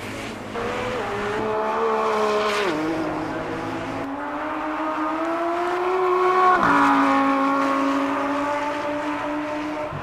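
Racing car engine under hard acceleration. Its note climbs, drops with a gear change about three seconds in, and climbs again. It is loudest about six and a half seconds in, then falls in pitch as the car goes past.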